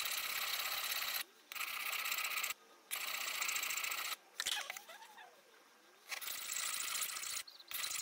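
Railroad-spike knife blade rasping across a wet sharpening stone in repeated strokes, each about a second long with short pauses between: the edge being sharpened.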